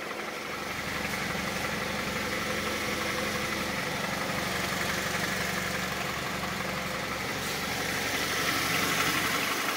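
Honda CR-V 2.4 i-VTEC four-cylinder petrol engine idling while warming up, with a diesel-like knocking that the owner places in the exhaust tract near the muffler. The knock has become quieter as the engine warms.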